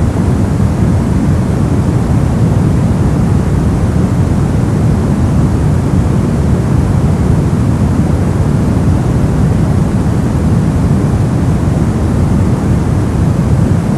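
Brown noise: a steady, deep rushing hiss, strongest in the low end and without any change or event.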